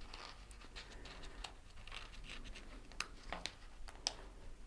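Faint, scattered light clicks and scratchy rustles of hands handling a taped-down vinyl decal sheet and its backing.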